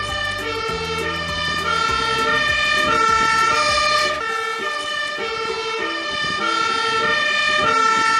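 Fire engine's two-tone siren alternating between a high and a low note. The truck's engine runs low underneath during the first half.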